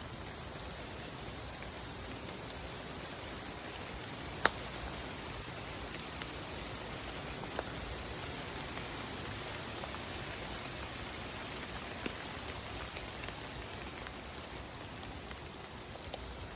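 Steady rain falling, with a few single louder drips; the sharpest comes about four and a half seconds in.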